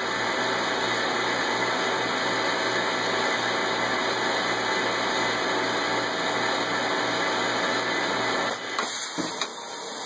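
Automated laser-marking machine running: a steady mechanical whirring with a faint regular low pulsing. Near the end it drops away and a short high hiss follows.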